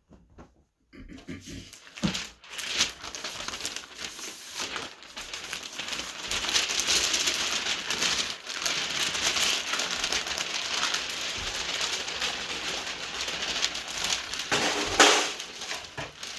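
Continuous crinkling and crackling, as of something being crumpled, starting about a second in, with a louder burst near the end.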